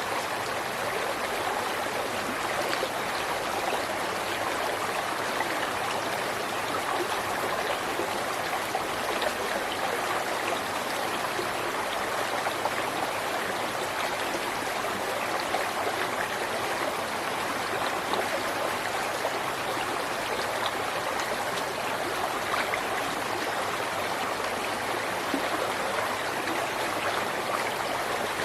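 River water flowing and splashing over rocks, a steady, even rush.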